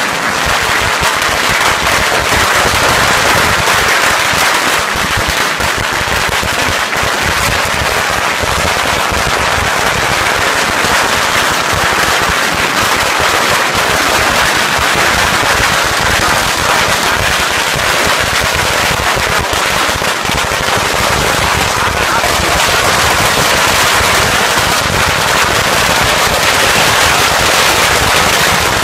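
Strings of firecrackers exploding in a dense, rapid, unbroken crackle of bangs.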